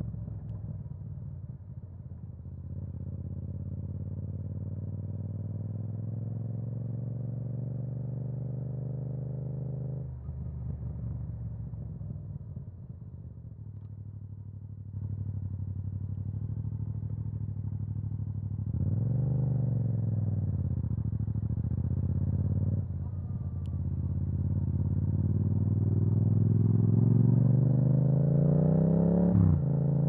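Yamaha MT-07's parallel-twin engine through an Akrapovič exhaust, being ridden. The note breaks off and picks up again a few times, swings up and back down once about two-thirds through, and climbs steadily in pitch near the end as the bike accelerates.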